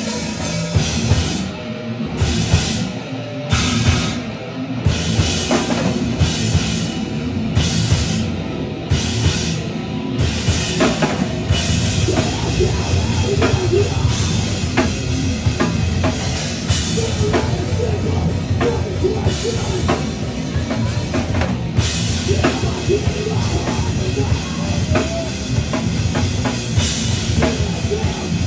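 Heavy metal band playing live: distorted electric guitars and drum kit. For the first dozen seconds the band hits together in sharp stop-start blows with short gaps, then runs on into a continuous driving riff over steady drumming.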